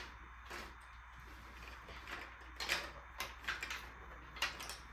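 Plastic marble run clattering: a string of short, irregular clicks and clacks of marbles and hard plastic track pieces, the loudest about halfway through.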